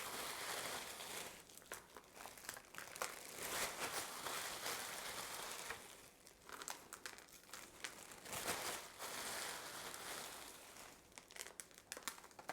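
A bag crinkling and rustling in short, irregular crackles as crushed chocolate eggs are tipped out of it.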